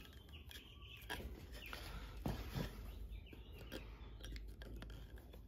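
Small nails being pushed by hand with needle-nose pliers into the soft wood of a Langstroth beehive frame: faint clicks and squeaks, a few sharper clicks around the middle.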